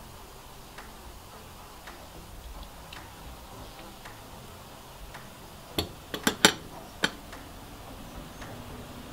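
Faint, regular ticking about once a second, with a quick run of about five sharp knocks from a utensil against a glass bowl and dish six to seven seconds in, while sauce is spooned onto the fish.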